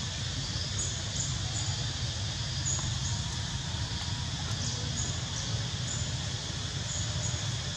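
Steady outdoor background noise with a low rumble, dotted with faint, short high-pitched chirps every second or so.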